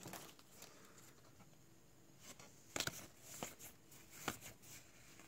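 Faint handling sounds of trading cards and torn foil wrappers. Nearly quiet at first, then a handful of small clicks and rustles from about two seconds in as the cards are flipped through.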